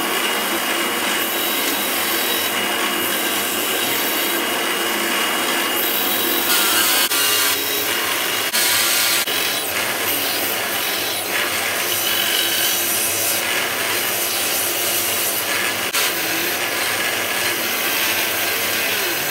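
Belt grinder running with a knife's handle scales pressed against the moving belt, a steady grinding as the handle material is ground down flush with the pins.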